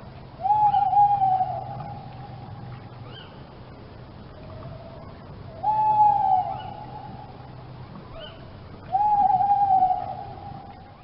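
Three long, steady, whistled bird calls several seconds apart. Each starts sharply and is held for about a second and a half, with faint high chirps between them.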